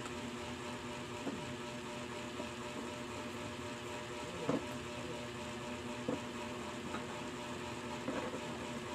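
A steady hum with several held tones underneath, and a handful of light knocks and rustles as a plastic sheet and thin sticks are handled on a wooden board. The loudest knocks come about halfway through and again near the end.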